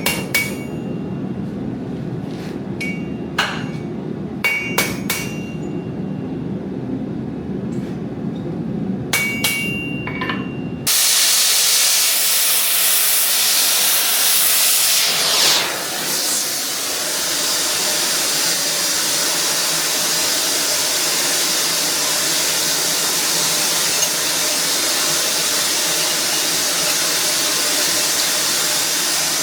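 Hammer blows on metal, a few sharp ringing strikes spaced seconds apart over a steady low hum. About eleven seconds in this cuts off suddenly and a steady, louder hiss takes over and continues.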